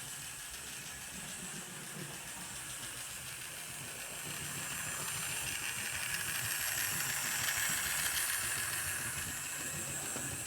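Hornby OO gauge model locomotive running in reverse along the track: a steady electric motor whir with wheels rattling on the rails. It grows louder about halfway through, then eases slightly.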